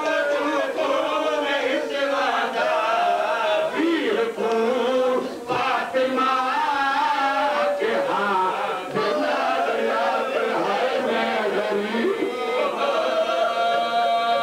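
Several men's voices chanting a noha (Shia mourning lament) together into a microphone, unaccompanied, with long held notes.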